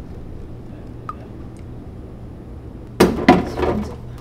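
A refrigerator door is pulled open with a sudden clatter about three seconds in. Before that there is only a low steady hum.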